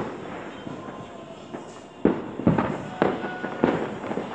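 Fireworks exploding: one bang at the start, then four more bangs in fairly quick succession from about two seconds in, each trailing off in an echo.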